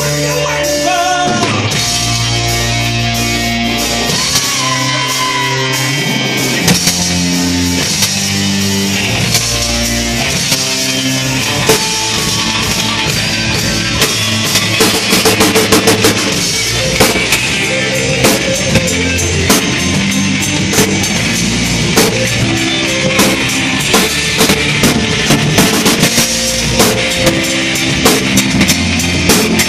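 Live band playing rock music on electric guitar, keyboard and drum kit, with a steady bass line. The drum hits grow louder and busier from about halfway through.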